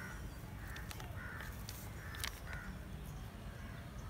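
Crows cawing outdoors: a run of short, harsh caws over the first two and a half seconds, with a few sharp clicks as a potted rose plant is handled.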